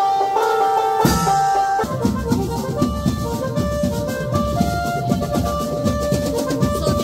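Music with drums and a held melody line. About two seconds in it changes abruptly to dense, fast drumming under a long held note.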